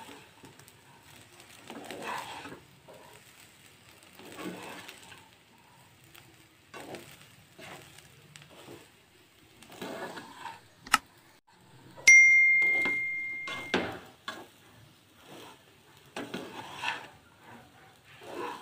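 A spatula scrapes and turns rice in a non-stick pan in soft strokes about every two seconds. About halfway through a click is followed by a loud bell ding that fades within two seconds: the subscribe-button sound effect.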